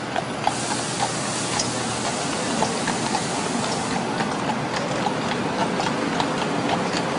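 Shod carriage horse's hooves clip-clopping on the street at a walk, about two strikes a second, over steady city traffic noise. A loud hiss comes in about half a second in and stops about four seconds in.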